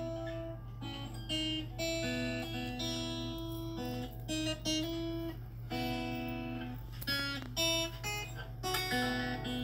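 Background music on acoustic guitar: a melody of plucked, held notes.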